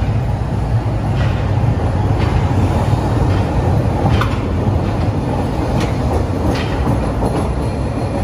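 CTA Blue Line rapid-transit train pulling out of the station: a steady low rumble of wheels and motors, with several sharp clicks.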